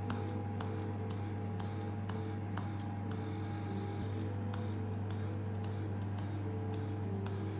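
Facial treatment machine running with a steady low electrical hum while its corded handpiece is worked over the face, with light clicks about twice a second.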